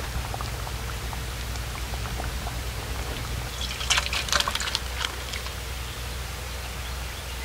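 Thick fish and taro curry is poured from a metal cooking pot into a steel bowl: wet sloshing with a short run of clinks and scrapes, metal on metal, about four seconds in. A steady low hum runs underneath.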